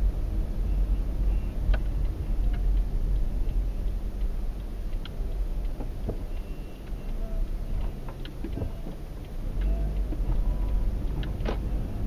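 Car driving on a winding mountain road, heard from inside the cabin: a steady low rumble of tyres and engine with a few light clicks and rattles now and then.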